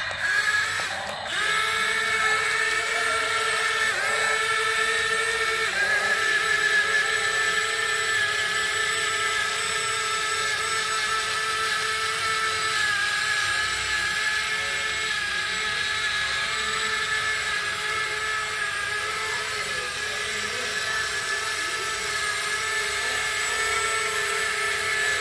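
Small electric motors of a toy remote-control excavator whining steadily as the arm and bucket work, the pitch stepping to a new level about one, four and six seconds in.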